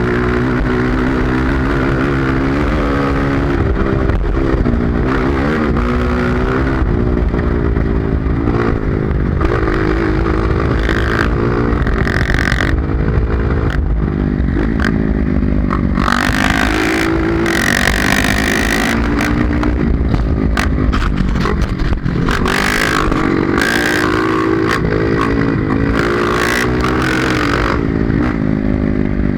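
Honda CRF230 dirt bike's single-cylinder four-stroke engine revving up and down over and over while riding off-road, with clattering and scraping from the terrain.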